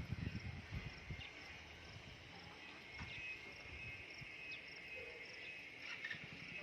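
Faint outdoor ambience with insects chirping: a steady high trill and short high pulses repeating about every half second, with a few low thuds near the start.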